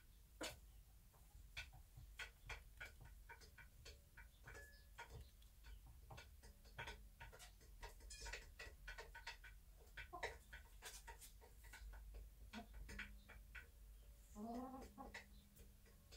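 Bantam hen brooding in a straw nest box: near silence broken by scattered small clicks and rustles, with a soft, low call from the hen near the end.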